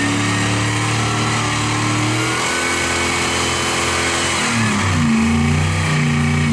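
Rock buggy engine held at high revs under full throttle while its tyres spin and smoke on wet sandstone. The note holds steady for about two seconds, breaks, then dips and climbs again in the second half.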